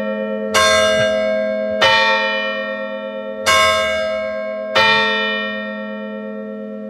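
Church bells struck by the tower clock for the quarter-hour, quarter to twelve. Four strikes in two pairs, the strikes in each pair about a second and a quarter apart, each ringing on and slowly fading over a steady low hum from the bells.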